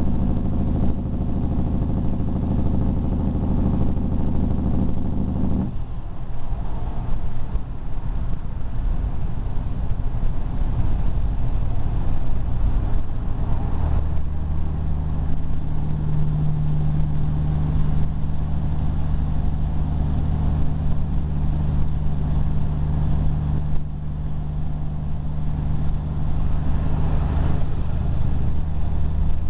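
Motorcycle with loud exhaust pipes running at highway speed. The steady engine note drops away suddenly about six seconds in and comes back stronger at about fourteen seconds.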